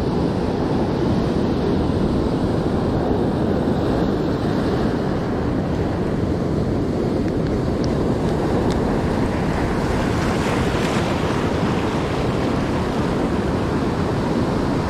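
Ocean surf breaking and washing in foam over a rocky shore, with wind on the microphone; a louder, hissier wash comes about ten seconds in.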